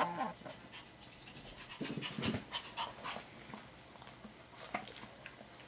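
An excited dog panting in irregular short bursts of breath, loudest about two seconds in.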